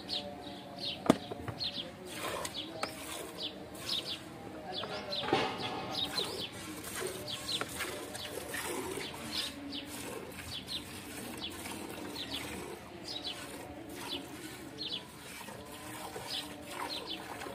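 Milk squirting in quick jets from hand-milked teats into a metal bucket, a rhythmic hiss of about two squirts a second. There is one sharp click about a second in.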